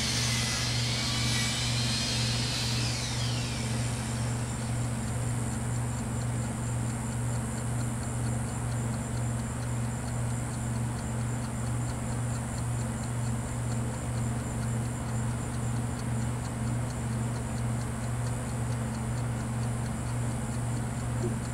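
A steady low mechanical hum, like a motor running, with a faint fast rattle high above it. In the first three seconds a higher whine glides down and fades out.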